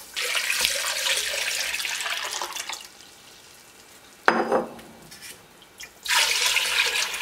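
Water poured in a stream into a metal pot of soup base, first from a blender jug until about three seconds in. A single sharp knock follows, and about six seconds in water pours again from a plastic bottle.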